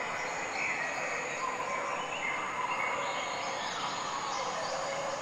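Steady outdoor ambience: an even hiss with faint chirps over it.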